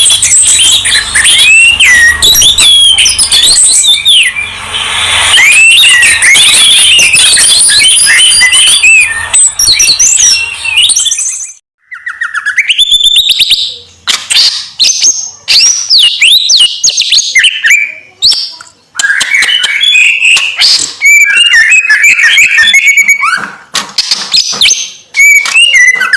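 Songbirds from a masteran mix of orange-headed thrush, white-eye and greater green leafbird singing. For the first half, fast, dense, high warbling with many overlapping notes. After a brief break about 12 s in, a different song of shorter whistled phrases separated by pauses.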